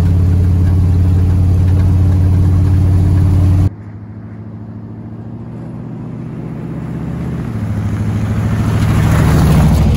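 1977 Dodge W100 pickup's 318 V8 running steadily on the move, heard loud from inside the cab. Nearly four seconds in, the sound switches abruptly to the truck heard from outside, its engine growing steadily louder as it approaches.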